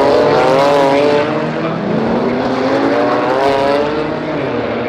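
GT4 race cars running hard, several engine notes overlapping and rising and falling in pitch as they rev and pass.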